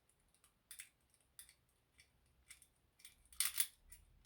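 Short wire lock picks clicking and scraping against the levers inside a lever lock as it is picked: light scattered ticks, then a louder metallic scrape about three and a half seconds in.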